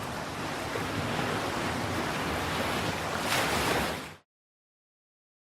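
Steady rushing noise like breaking surf. It swells briefly, then fades out about four seconds in, leaving silence.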